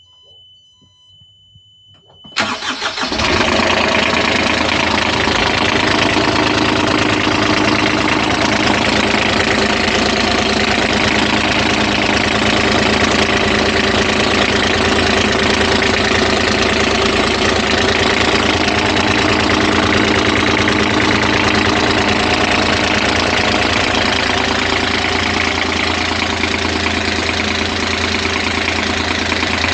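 Nanni marine diesel engine in an open engine bay starting up and then idling steadily. The start follows a high steady beep of about two seconds from the engine's warning buzzer, which stops as the engine fires.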